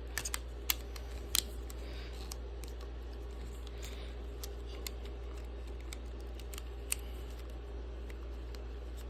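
A few light clicks and taps of a hard clear plastic case being pressed onto a Switch 2 Joy-Con, mostly in the first second and a half and once more near the end, over a steady low hum.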